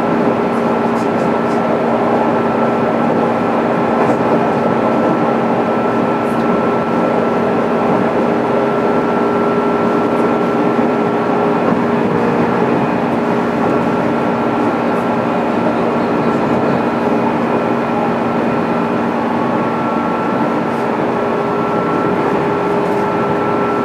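JR East 205 series electric train, motor car MoHa 205-612, running at a steady speed, heard inside the passenger cabin: continuous wheel-and-rail running noise with several steady whining tones that hold their pitch throughout.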